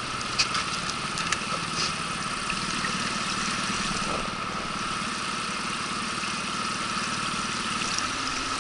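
Small outboard motor on an inflatable boat running steadily at low speed. A few light clicks come in the first two seconds.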